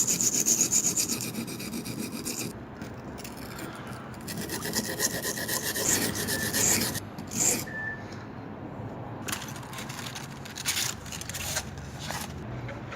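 Pocket knife blade being rubbed across the coarse side of a sharpening stone to grind a new bevel on a badly damaged edge. It starts as a quick, even run of short grinding strokes, then turns to slower, longer strokes with pauses between them.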